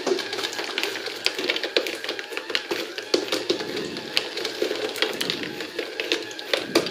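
Glass marbles clicking and rattling irregularly, several times a second, as a cardboard escalator lifts them step by step and they roll along cardboard tracks. A small yellow DC gear motor drives the escalator, with a steady whir underneath.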